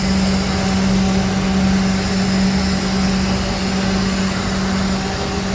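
Steady drone of an idling vehicle engine: a constant low hum with an even hiss over it.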